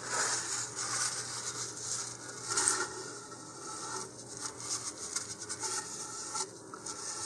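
Handling noise from gloved hands turning a plastic rocket nose cone: irregular rubbing and scraping, with a louder scrape a little over two seconds in.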